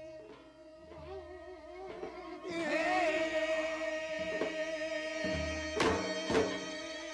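Korean shamanic ritual music of the Jindo ssitgim-gut: a long held melodic line with wavering ornaments, joined about two and a half seconds in by a brighter, fuller layer of sound. Janggu hourglass drum strokes come in near the end.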